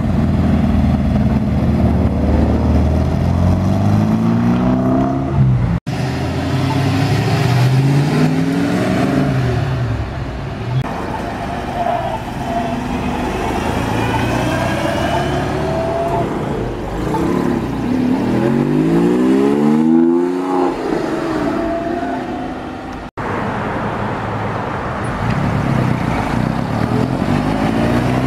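Classic cars driving past one after another and accelerating away, each engine note rising as it pulls off and fading as it passes, first a Volkswagen Karmann Ghia. The sound breaks off abruptly twice where one car's pass gives way to the next.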